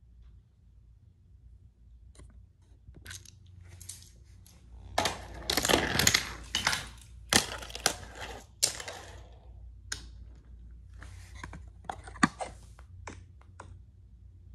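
Irregular small clicks, taps and rattles of hands handling toys and a tablet on a floor, busiest from about five to nine seconds in.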